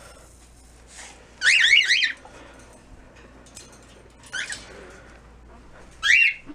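Pet birds chirping: a loud run of rapid up-and-down chirps about a second and a half in, then shorter calls near the middle and again near the end.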